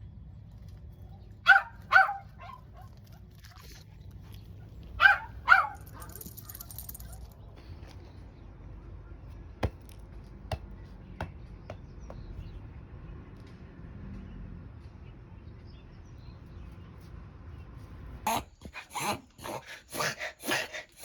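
Mame shiba dog honking like a goose, twice in quick pairs, then in a fast run of repeated honks near the end: a reverse-sneezing episode, which the owner also wondered might be tracheal collapse.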